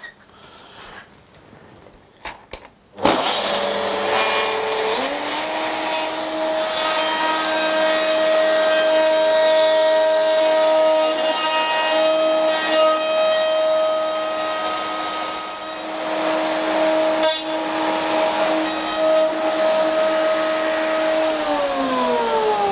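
A few light handling clicks, then about three seconds in a saw mounted in a Triton Workcentre and its dust extractor are switched on. They run up to speed and run steadily while a finger-joint cut is made, then switch off near the end and wind down in falling pitch.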